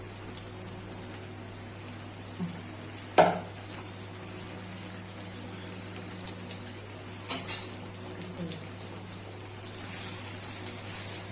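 Batter-coated ripe banana slices (pazham pori) sizzling steadily in hot oil in a pan, growing a little louder near the end. One sharp knock about three seconds in and a few light clicks later.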